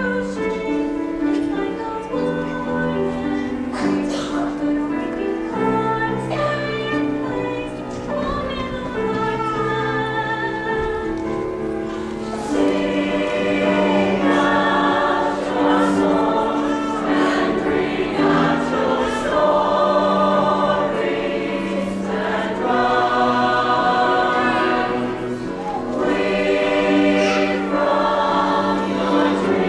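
Mixed choir of young men and women singing a slow piece in held chords with piano accompaniment. The sound grows fuller and louder about halfway through.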